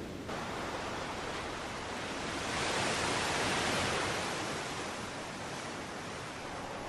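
Steady rushing noise that swells louder and brighter for about two seconds near the middle, then settles back.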